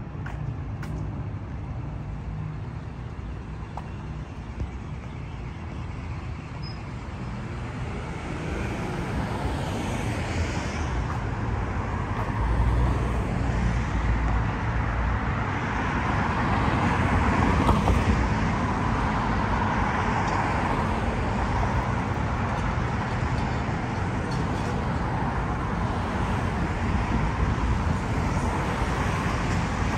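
City street traffic: cars driving past with a steady wash of tyre and engine noise that swells about a third of the way in and then holds.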